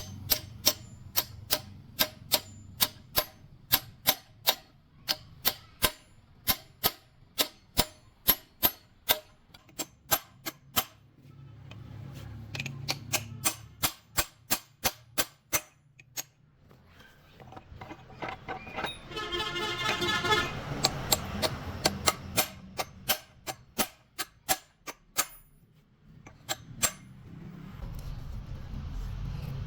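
Hammer striking metal, sharp taps at about two a second in several runs, typical of knocking gearbox parts loose during a strip-down. A short pitched call or horn sounds once near the middle.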